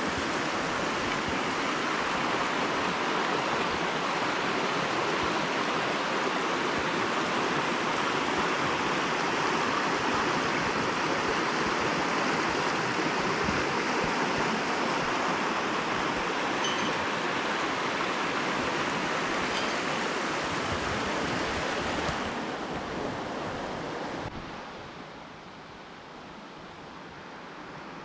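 Rushing water of a creek or waterfall, a steady full hiss. It drops away near the end, falling off sharply about 24 seconds in.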